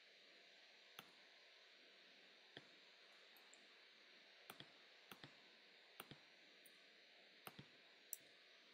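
Faint, scattered clicks of a computer mouse, about ten of them, several in quick pairs, over a low steady hiss.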